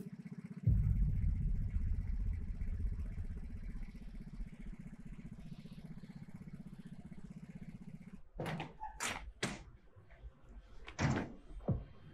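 Motor scooter engine starting up and running with a low, evenly pulsing rumble that fades away over several seconds. Then a few short sharp sounds near the end.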